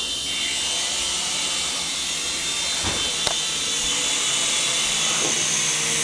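Small infrared remote-control toy helicopter's electric motor and rotor blades whirring steadily in flight, with a couple of brief ticks near the middle.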